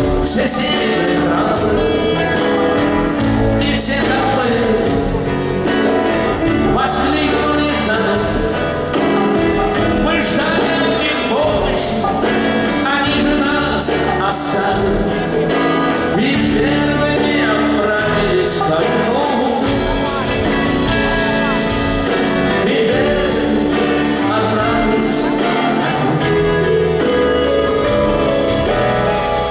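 Live rock band music playing steadily.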